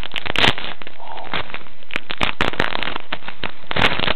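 Foil Pokémon booster pack wrapper crinkling and tearing open close to the microphone: a dense, irregular run of crackles that stops near the end.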